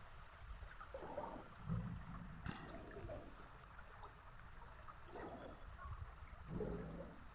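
Faint river water running steadily, with a single sharp click about two and a half seconds in.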